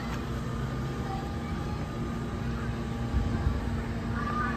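Parked fire apparatus idling: a steady low engine rumble with a constant hum, and a brief low thump about three seconds in.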